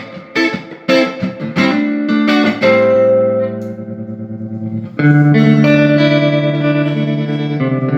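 Electric guitar played through a Fender '65 Deluxe Reverb Reissue valve amp, freshly fitted with new power tubes and biased: a few quick picked notes and chords, then a chord left ringing and dying away, and a new chord struck about five seconds in and held.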